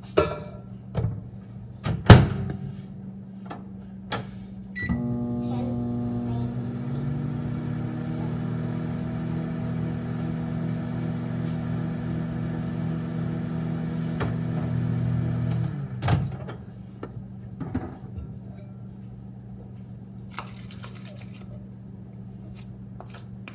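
Microwave oven: a few knocks and clicks, the loudest about two seconds in, then a short beep and the oven running with a steady hum for about eleven seconds before it cuts off with a click.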